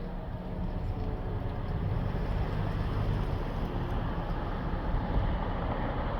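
Steady low outdoor rumble of wind on the microphone and traffic, growing slightly louder about two seconds in.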